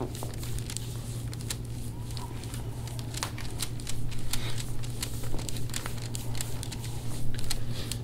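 Light crinkling and crackling clicks of rustle and friction during deep-tissue elbow work on a man's back on a treatment table, scattered irregularly over a steady low hum.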